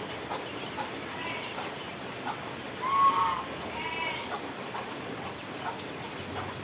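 Steady rain falling, with a few short calls from farm fowl; the loudest call comes about three seconds in, with another a second later.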